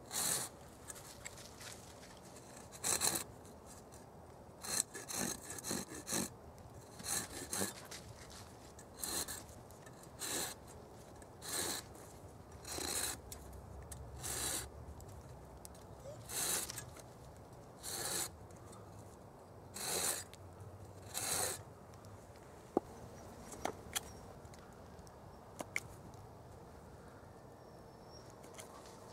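Knife blade scraping along a birch log, stroke after stroke, roughly one every second or two with a few quicker ones near the start. The strokes stop about three-quarters of the way through, leaving only a few light clicks.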